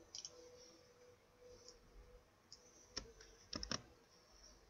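A few computer mouse clicks: two just at the start, one about three seconds in, and a quick pair just after it.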